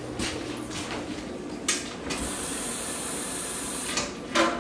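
Kitchen sink faucet turned on, water running with a steady hiss for about two seconds from midway, then shut off abruptly. A couple of short knocks come before it.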